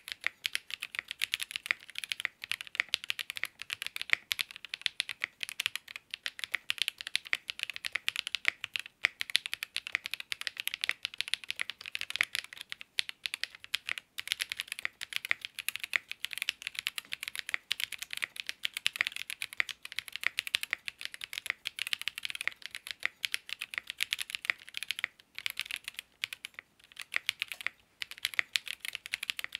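Fast, continuous typing on a ZoomTKL mechanical keyboard with an FR4 plate, GMK keycaps and Ceptify linear switches: a dense run of keystroke clacks with a few short pauses near the end.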